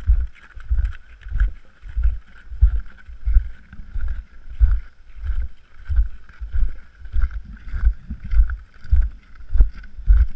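Footsteps of a person walking on glacier ice and snow, heard as regular dull thumps through a body-carried GoPro Hero 3, about one and a half steps a second.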